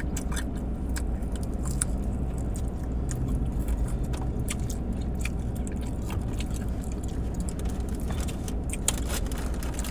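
Close-up chewing of crispy fried chicken wings, with smacking and a scatter of short crunches and clicks, over a steady low hum.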